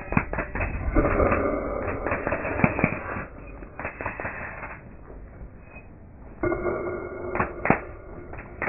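A sculptor's tool working a large block of stone: irregular sharp knocks and cracks with bursts of rough, rattling noise. It is busiest between about one and three seconds in and again around seven seconds.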